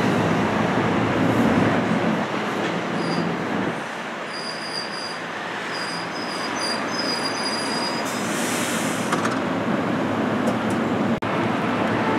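Passenger train rolling by at close range with a steady rumble, and a high-pitched metallic wheel squeal that comes and goes in short pieces from about three to seven seconds in.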